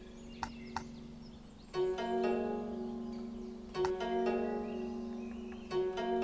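Background music of plucked strings, like harp or pizzicato, over held chords, with a new plucked phrase about every two seconds.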